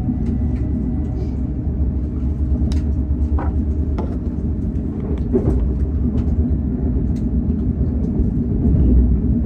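Steady low rumble of a moving vehicle, with scattered light clicks and knocks.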